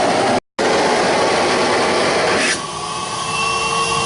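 Nybakke all-metal canister vacuum with a two-fan motor running at full power, with a loud rush of air. About two and a half seconds in, the rush of air drops away and a steady multi-toned motor whine takes over, as happens when the intake is sealed for a suction (water-lift) reading. A very brief dropout to silence about half a second in.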